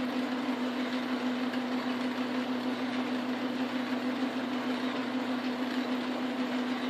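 Metal lathe running slowly in back gear while a 3/4 inch reamer cuts a bore in the chucked workpiece: a steady machine hum with one constant low tone.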